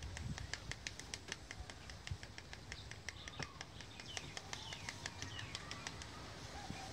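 A fast, even series of sharp ticks, about six a second, that stops near the end, with a few short bird chirps in the middle and a couple of low thumps near the start.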